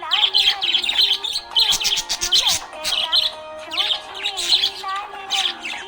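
Budgerigar chirping and warbling in quick, high bursts over background music.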